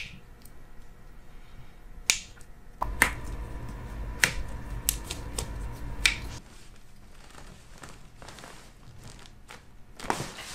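Foot and toe joints cracking under a chiropractor's manipulation: about half a dozen sharp pops spread over the first six seconds. A low rumble of hands handling the foot runs under the middle pops.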